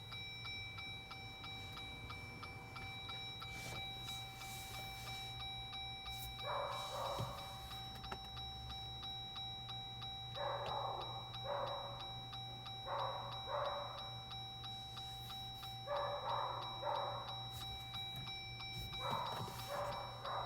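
Steady regular ticking over a low steady hum, with pairs of short sounds every few seconds.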